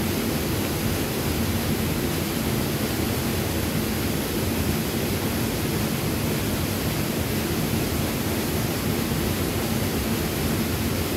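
Steady rush of flowing river water, an even hiss with a heavy low end and no breaks.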